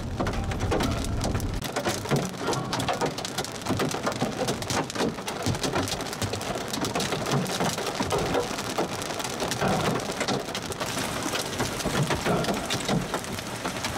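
Hail and heavy rain pelting a vehicle's roof and windshield: a dense, irregular clatter of small sharp hits over a steady hiss of rain.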